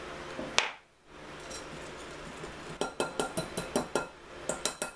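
A wire whisk beating batter in a glass mixing bowl. Its wires clink against the glass in a quick run of taps, about five a second, through the second half, with one sharp clink about half a second in.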